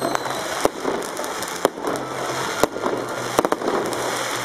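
New Year's fireworks going off: sharp bangs roughly once a second over continuous crackling. A high falling whistle from a firework dies away just after the start.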